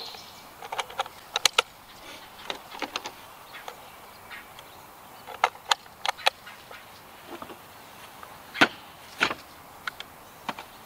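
12-gauge shotgun shells being pushed one by one into a box magazine: a dozen or so sharp clicks and snaps at uneven intervals, the loudest about eight and a half seconds in.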